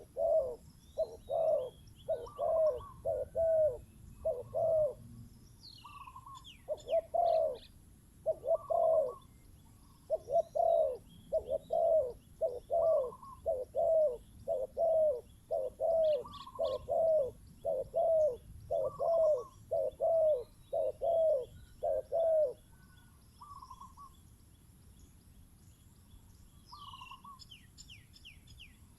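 Spotted dove cooing: a long run of loud, repeated coo notes, about two a second, that stops about 22 seconds in. Small birds chirp faintly in the background.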